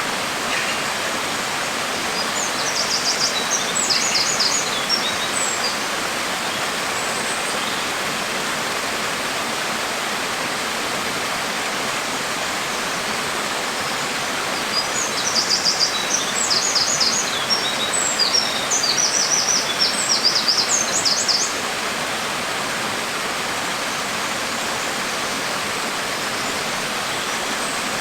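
Steady hiss of falling rain. A bird sings two spells of quick, high chirps over it, one a few seconds in and a longer one around the middle.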